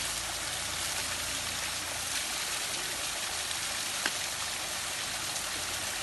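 Small hillside waterfall pouring steadily onto rock and onto a man sitting beneath it, a steady splashing rush of water.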